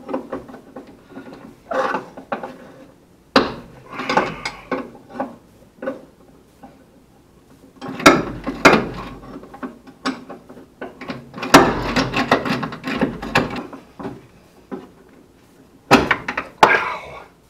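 Hand tools and steel suspension parts clinking and knocking as the lower control arm of a 1966 Ford Mustang's front suspension is unbolted and worked free. The clatter comes in irregular bursts with short pauses between, the heaviest in the second half, some with a dull thud.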